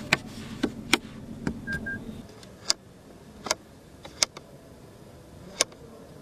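A series of sharp, separate clicks at uneven intervals, about nine in all, with a short single beep about two seconds in.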